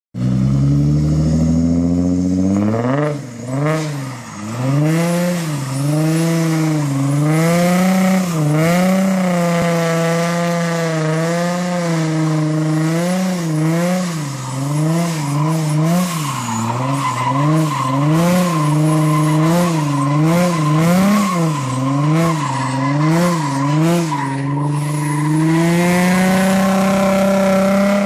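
Nissan 350Z's 3.5-litre V6 engine revving hard, its pitch swinging up and down again and again as the throttle is worked through tyre-sliding donuts, with the rear tyres squealing. The revs climb at the start and are held high for a few seconds at a time near the middle and near the end.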